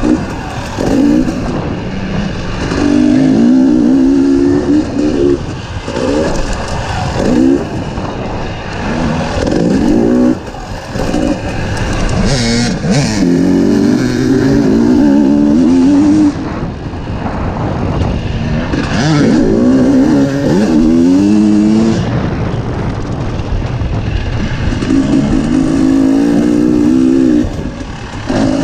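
Dirt bike engine revving up and easing off again and again, its pitch climbing and dropping several times as the bike runs around a motocross track, with a steady rush of noise underneath.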